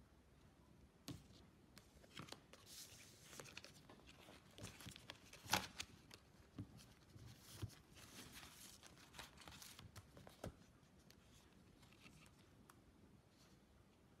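Faint handling of a product box and its packaging: rustling and scraping with scattered light clicks and taps, the sharpest tap about five and a half seconds in, dying away after about ten seconds.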